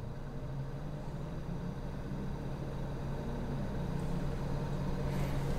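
A vehicle engine's steady low hum, growing slowly louder.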